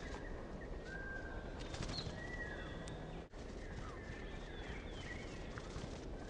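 Small wild birds calling and chirping in short whistled notes and slides, over a steady low outdoor rumble. The sound cuts out for an instant a little past halfway.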